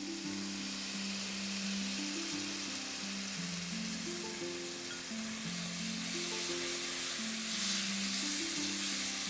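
Lemon juice poured into a hot pan of oil-fried onion and spices, sizzling steadily, and stirred with a silicone spatula near the end. Soft background music with held notes plays underneath.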